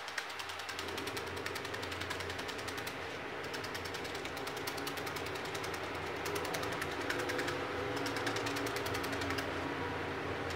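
A felting needle is stabbed rapidly and repeatedly through wool roving into a foam sponge, making a fast, even run of small punching clicks that eases briefly a couple of times.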